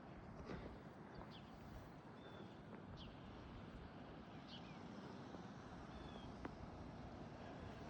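Faint outdoor ambience: a low, even hiss with a few short, high bird chirps every second or two.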